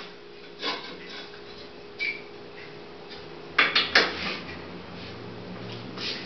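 Wooden screen-printing frame knocking and clattering as it is handled and set against the wall rack, with a quick cluster of three or four knocks a little past the middle. A steady low hum runs underneath.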